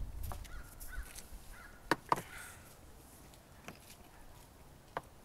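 A few sharp clicks and taps from handling a can of PVC glue and its dauber. The two loudest come close together about two seconds in, with fainter ones later.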